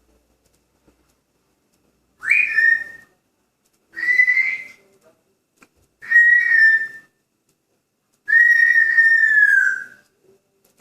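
African grey parrot whistling four times: three short whistles, then one longer whistle that falls in pitch at its end.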